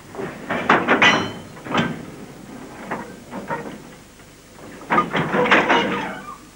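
Railway freight wagons clanking and rattling: irregular metallic knocks and rumbles, some with a short ring, busiest about five seconds in.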